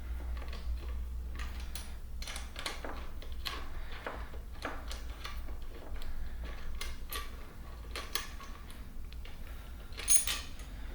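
Irregular light metallic clicks and taps of a 5 mm Allen key turning a bolt out, with a sharper click about ten seconds in.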